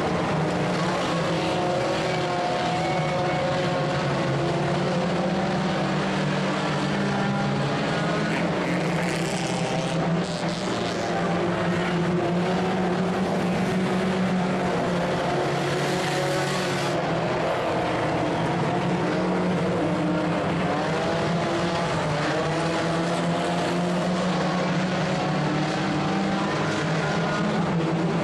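Several dirt-track tuner-class race cars running together at speed, a steady din of overlapping engine notes.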